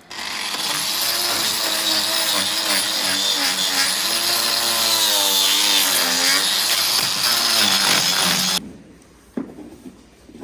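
A power tool running loudly, its pitch wavering up and down, then cutting off suddenly about eight and a half seconds in.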